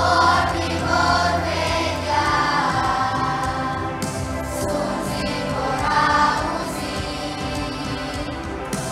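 Children's choir singing a Romanian hymn in unison phrases that swell and fall, over a sustained low accompaniment note in the first couple of seconds.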